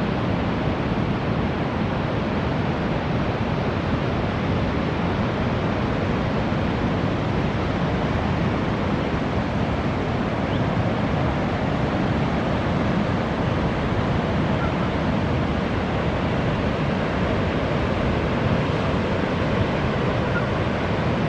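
Pacific Ocean surf breaking on the beach: a steady, even wash of waves with no single crash standing out.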